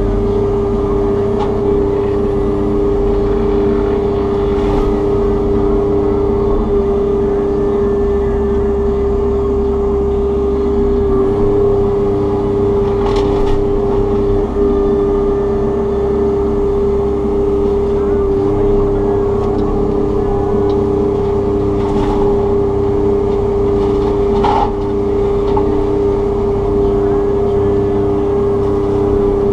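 Takeuchi TB290 excavator running under load with its FAE mulching head spinning: a loud, steady hum with a constant pitch, over a low rumble that shifts every few seconds. A few short knocks come through, about four over the stretch.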